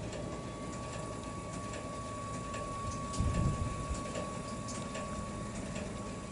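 Gas station fuel dispenser pumping fuel into a pickup truck's tank: a steady high whine over a low rumble, with a few faint clicks and a brief louder low thump about three seconds in.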